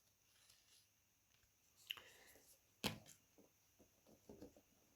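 Near silence, broken by faint handling of a paper manual and its box: a soft rustle about two seconds in and a sharper tap about a second later.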